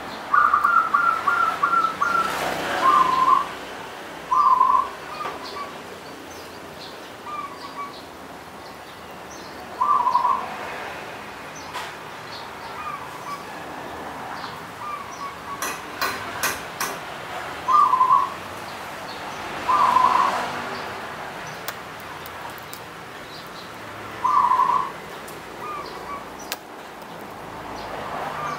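Zebra dove (perkutut) cooing: a quick stuttering run of high notes opens the song, then about half a dozen short rolling coo phrases follow every few seconds. Fainter short notes sit between the phrases, and a few sharp clicks come near the middle.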